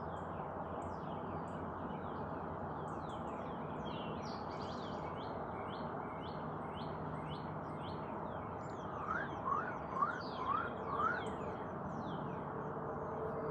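Several birds chirping over a steady rushing background. About nine seconds in, a run of five quick rising notes stands out as the loudest sound.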